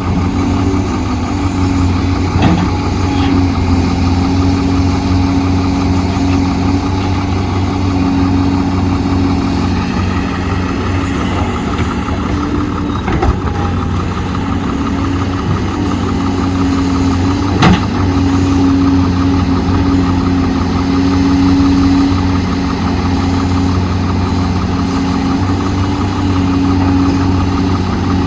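Heavy diesel engine of earthmoving machinery running steadily, with a few sharp knocks, the loudest about 18 seconds in.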